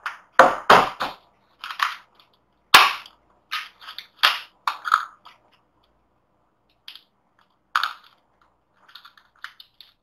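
Handling noise from an opened desktop tower case and a plastic package: a run of sharp, irregular crackles, clicks and knocks, loudest in the first half with one sharp click about three seconds in, thinning to faint ticks near the end.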